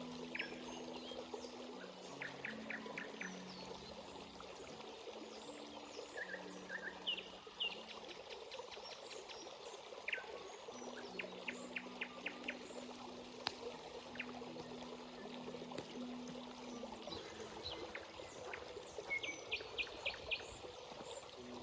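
Stream water flowing and trickling steadily over rocks, with small birds chirping in quick series of short notes every few seconds.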